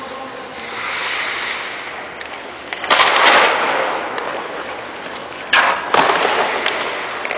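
Hockey skate blades scraping the ice in hissing strokes, the loudest about three seconds in, then two sharp cracks of a hockey stick less than half a second apart, each followed by more scraping.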